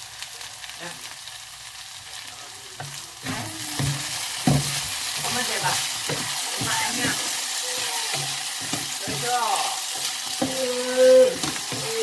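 Julienned potatoes sizzling in a nonstick frying pan while a wooden spatula stirs and scrapes through them; the stirring picks up about three seconds in, with many short strokes, and one louder scrape of the spatula on the pan near the end.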